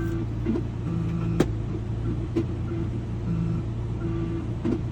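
Vehicle engine idling with a steady low hum, with a few sharp clicks; faint music plays underneath.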